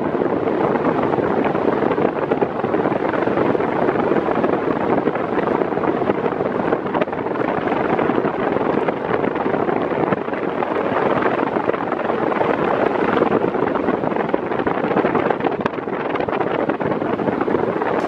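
Arno Silence Force VF40 40 cm fan running on its medium speed: a steady, even rush of air, with its airflow blowing onto the microphone.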